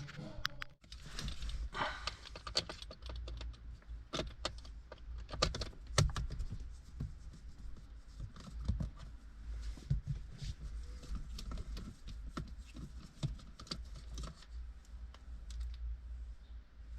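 Irregular light clicks and taps of small plastic parts being handled, over a low steady hum.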